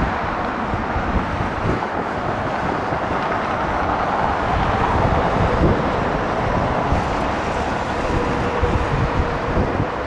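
Antonov An-124's four Progress D-18T turbofans running at taxi power: a steady rumble and rush, with wind buffeting the microphone. A faint steady whine comes in about six seconds in.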